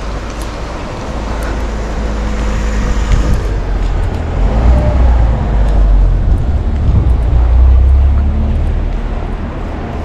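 Wind buffeting the camera microphone, which has no windscreen: a gusting low rumble that grows louder partway through.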